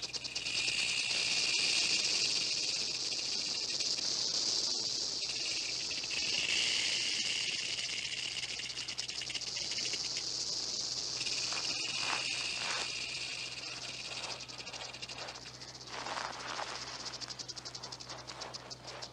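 Several rattlesnakes rattling together: a continuous dry, high buzz that swells and eases, with a few faint knocks in the later half.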